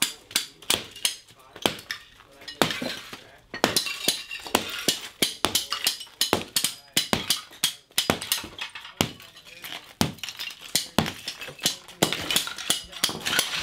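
A sledgehammer strikes ceramic floor tiles again and again, roughly twice a second at an uneven pace. Each blow cracks the tile, and the broken shards clink and clatter.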